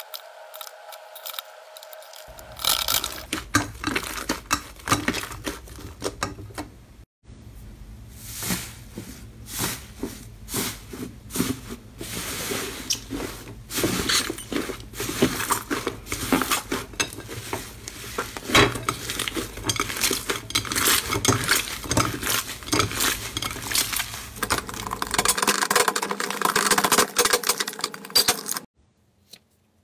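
Hands squishing, stretching and pressing slime in glass bowls: a dense, irregular run of wet crackles, clicks and small pops. It breaks off briefly twice and stops suddenly near the end.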